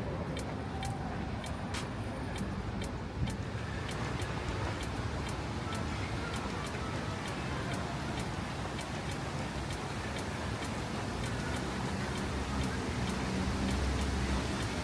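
Steady urban traffic rumble with light, regular ticks about twice a second, typical of walking footsteps; the rumble swells near the end.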